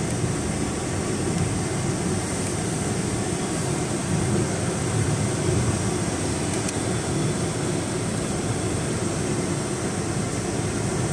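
Steady interior noise of a Mercedes-Benz G500 being driven along a gravel track: low hum of its V8 engine with tyre and road rumble, heard inside the cabin.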